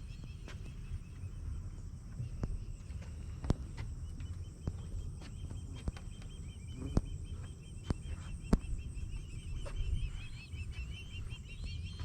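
Outdoor trail ambience: a low rumble with scattered sharp clicks and knocks, and a faint, rapid, evenly repeating animal chirp that runs through the middle few seconds.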